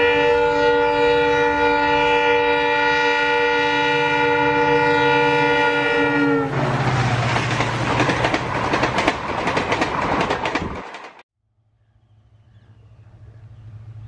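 Diesel locomotive horn sounding one long, steady chord of several tones over the low rumble of the engine, stopping about six seconds in. A dense clattering noise follows and cuts off abruptly; after a short silence a low engine drone fades in.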